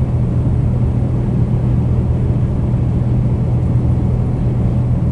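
Kenworth T880 ready-mix truck's diesel engine running at a steady cruise, an even low drone with road noise under it, heard inside the cab.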